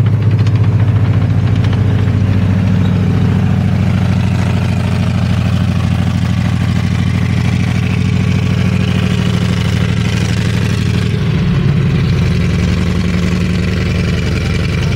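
Engine of an M4 Sherman tank running steadily at low revs, with a shift in its tone about eleven seconds in.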